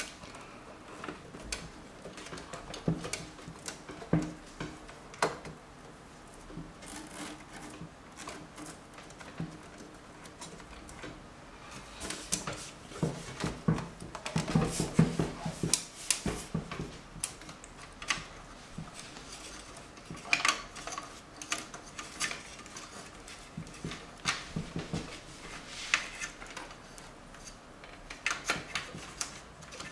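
Power supply cables and their plastic connectors handled inside a metal PC case: irregular clicks, taps and rustles as the cables are bundled together, thickest in the middle.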